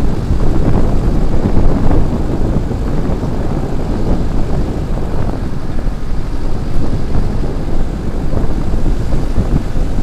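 Moving vehicle's engine and tyre noise, with wind buffeting a microphone held outside the window: a loud, steady, rough rumble.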